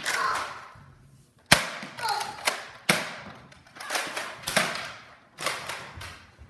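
Nerf blasters firing in a quick run of sharp pops, roughly two a second, each with a short decaying tail.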